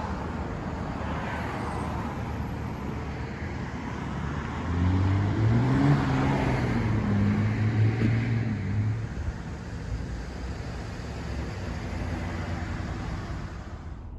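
Road traffic noise, with a motor vehicle passing by about halfway through; its engine note rises and then drops as it goes past.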